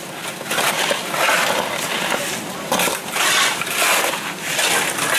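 Several steel shovels scraping and digging into wet mud and gravel, in repeated gritty strokes about once a second.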